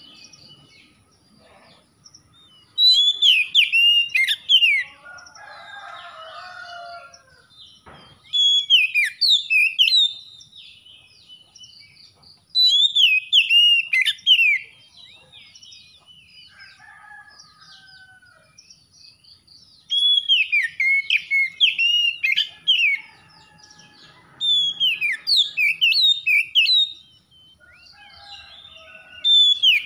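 Oriental magpie-robin (kacer) singing: loud bursts of whistled song about two seconds long, each full of quick falling sweeps, six times with pauses of several seconds between. Fainter twitters fill the gaps, and a harsher, lower chatter comes around six seconds in.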